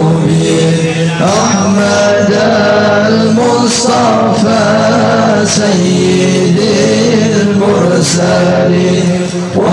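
A man's voice chanting an Islamic sholawat in long, drawn-out melodic lines.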